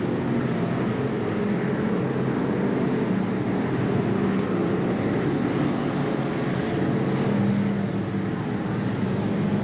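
Stock cars racing on an oval track, several engines running together at speed in a steady, unbroken sound with no single car standing out.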